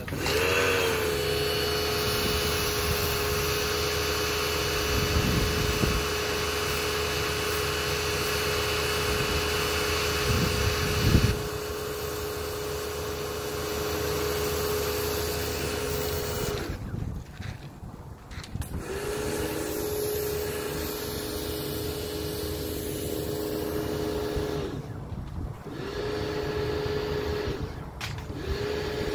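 A steady mechanical hum with a whine at one pitch, over a hiss. It rises into pitch at the start and cuts out a few times in the second half, returning each time.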